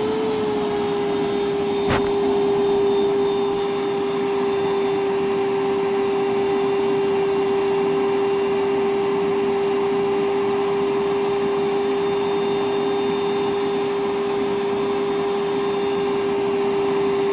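Milwaukee M12 1.6-gallon wet/dry vacuum running steadily, a constant motor whine over the rush of air, with one sharp click about two seconds in.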